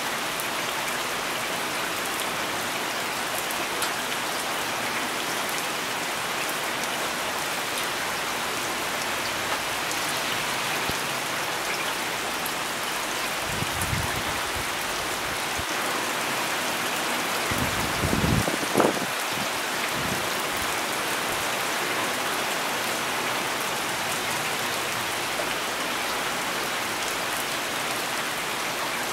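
Heavy rain falling steadily, a dense even hiss of drops hitting the ground. A few brief low thumps come about halfway through, the loudest just under two-thirds of the way in.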